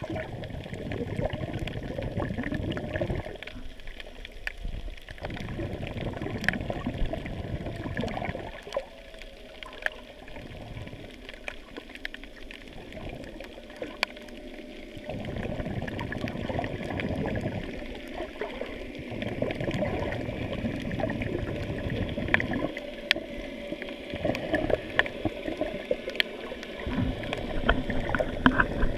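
Muffled underwater water noise heard through a GoPro's waterproof housing while submerged: a low rushing and gurgling that swells and drops every second or two, with scattered small clicks.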